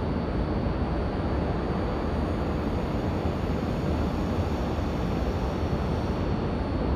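Steady rushing hum from an E5 series Shinkansen standing at the platform, with a thin high whine above it.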